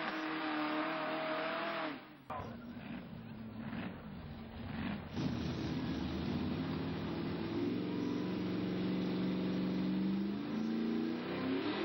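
Engines of tractor-tired mud-bog trucks: one running at high, steady revs cuts off sharply about two seconds in. After a quieter, rougher stretch, a second engine comes in at about five seconds, holds high revs at a steady pitch, and shifts in pitch near the end.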